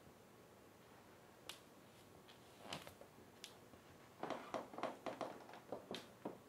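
Faint, scattered small clicks and rustles of movement in a quiet room, with a quick run of them starting about four seconds in.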